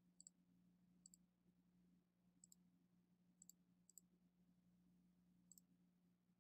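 Faint computer mouse clicks, about six spread unevenly, most of them a quick double tick, over a low steady hum.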